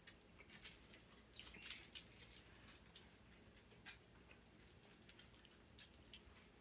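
Faint, irregular clicks and smacks of someone chewing food with their mouth, quiet between the clicks.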